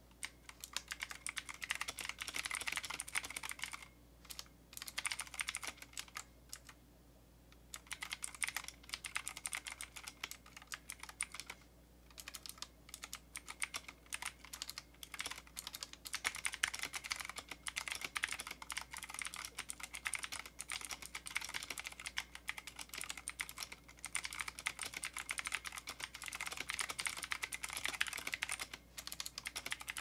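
Typing on an Ajazz AK33 mechanical keyboard with clicky blue switches: fast keystroke clicks in runs of a few seconds, broken by short pauses.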